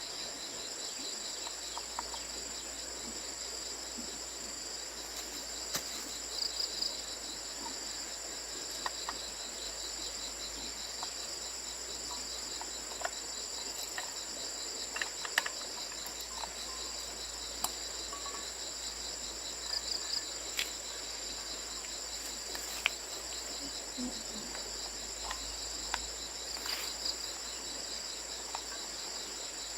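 Insects, crickets or similar, trilling steadily in two high, even chirring tones, one of them pulsing rapidly. Scattered light clicks and taps come through at irregular moments.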